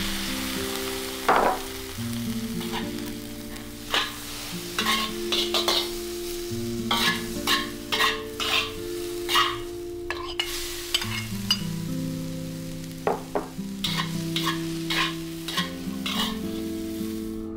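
Vegetables stir-frying in a hot wok: a steady sizzle with frequent clacks and scrapes of metal spatulas against the pan. The sizzle drops out for a moment about ten seconds in, then resumes with tomato and egg.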